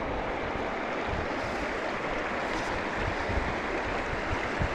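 Shallow, clear river running over stones, a steady rushing of water.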